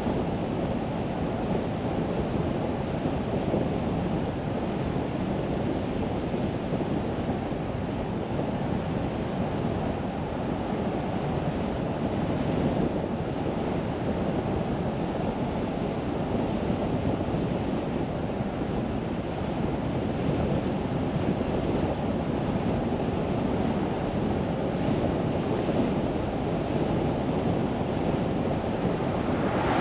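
Steady road and wind noise of a car driving, a constant rush of tyres and air with no distinct events.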